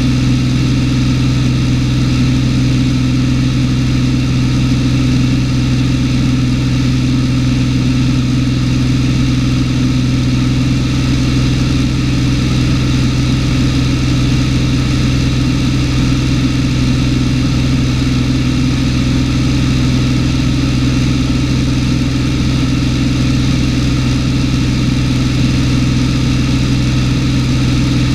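Cessna 210's six-cylinder piston engine and propeller droning steadily in flight, heard from inside the cabin.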